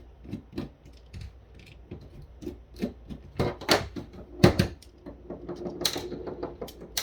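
Irregular plastic clicks, taps and knocks from a VTech cordless phone handset being handled and turned over, loudest about halfway through.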